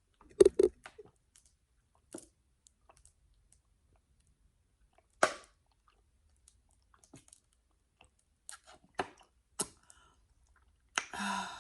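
Close-up eating sounds of crab and lobster: wet chewing with scattered sharp clicks and a few louder cracks, ending in a short breathy exhale.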